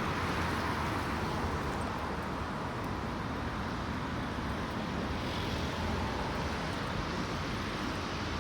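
Steady road traffic noise, an even rumble without distinct events.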